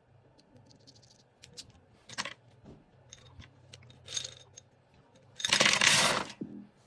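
Akko Pink mechanical keyboard switches being handled: scattered light plastic clicks and clatter, then a louder rattle lasting about a second, starting about five and a half seconds in.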